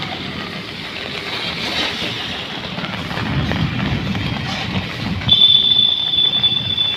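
Street noise in heavy rain: a steady hiss with the low rumble of a vehicle passing from about three seconds in. About five seconds in, a steady high-pitched tone starts and becomes the loudest sound.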